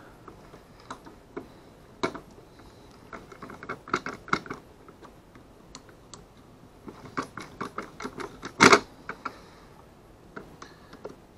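Screwdriver and wrench working the bolts of a fish finder mounting bracket: scattered small metal clicks and taps in short clusters, with a louder clatter of knocks about three-quarters of the way in.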